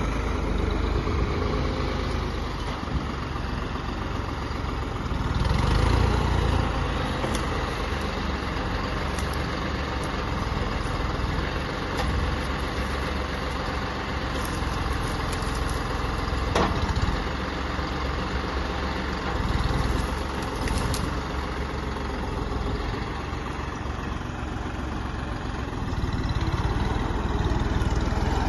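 Heavy machine's diesel engine running steadily, swelling louder a few times as it comes under load, with a few sharp knocks.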